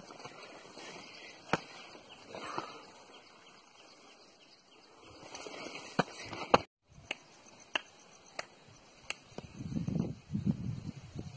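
Scattered sharp clicks and taps of a handheld phone being moved over rock and grass, with a brief dropout a little past halfway; from about nine seconds in, wind buffets the microphone.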